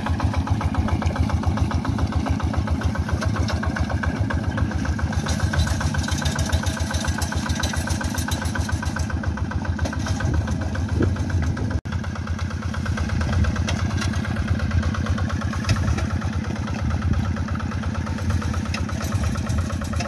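Engine of a two-wheel walk-behind hand tractor running steadily under load with an even, rapid beat, as it pulls a comb harrow through flooded rice-paddy mud to smooth freshly ploughed soil. There is a momentary dropout about twelve seconds in.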